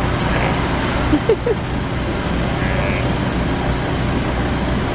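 A steady low motor hum runs without a break.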